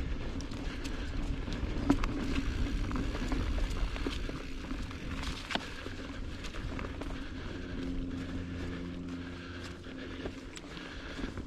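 Mountain bike rolling over a dirt and rock trail: a continuous low rumble from the tyres and frame, with scattered sharp clicks and rattles from the bike. A steady low hum comes in past the middle and fades after a couple of seconds.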